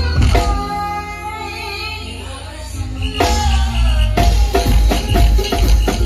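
Live band playing loud through stacked PA speakers on a music truck: a held chord over heavy bass, then the drums come in with a steady beat about halfway through.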